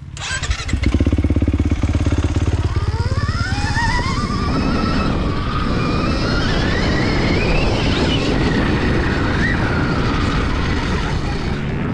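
Several motocross bikes setting off from the start line together, engines revving hard as the pack accelerates away. A whine climbs steadily in pitch over several seconds as the bikes gather speed.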